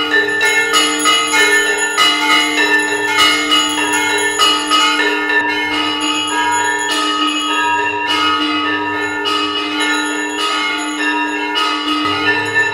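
Temple bells ringing continuously for an aarti, struck rapidly and unevenly, with several bells of different pitches sounding together.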